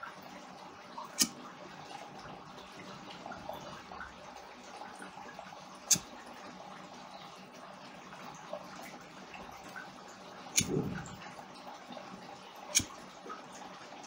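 A handheld lighter clicked four times, single sharp clicks a few seconds apart, as heat-shrink tubing is heated to shrink it; the third click is followed by a brief low whoosh. A faint steady hiss lies underneath.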